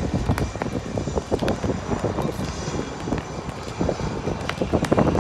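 HAL Light Combat Helicopter flying an aerobatic display pass, its rotor beating in quick, uneven pulses over the engine noise.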